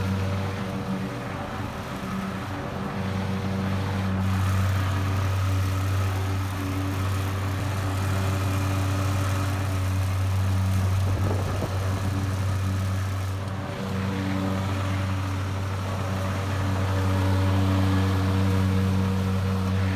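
Gas-powered lawn mower engine running steadily while cutting grass, its note wavering briefly about halfway through.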